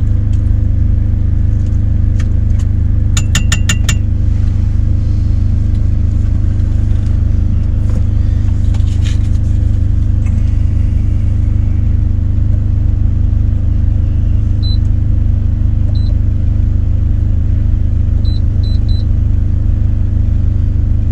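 Steady low drone of an idling diesel engine under the cab. About three seconds in there is a quick run of clinks. Near the end come several short, high beeps from the Instant Pot's control panel as its buttons are pressed.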